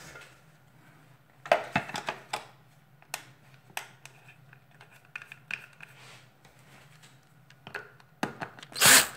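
Hard plastic parts of a Dyson DC37 vacuum cleaner being handled and fitted together: scattered clicks and knocks, with a quick cluster about a second and a half in. A short loud burst of noise comes right at the end.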